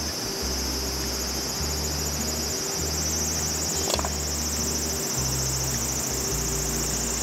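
Steady high-pitched chirring of summer insects, with a soft bass line of background music beneath and a single knock about four seconds in.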